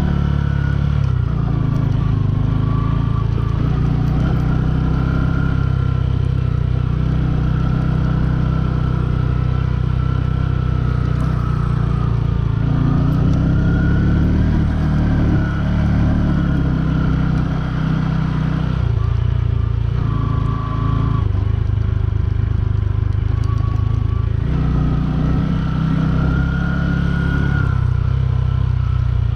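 Bajaj Boxer 150's single-cylinder four-stroke engine running under way, its pitch rising and falling repeatedly as the throttle is opened and eased, with a dip about two-thirds of the way through.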